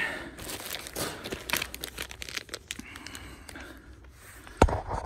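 Thin clear plastic bags crinkling and rustling in the hands as a small zip-top bag is pinched open, in irregular little crackles. A single sharp knock near the end.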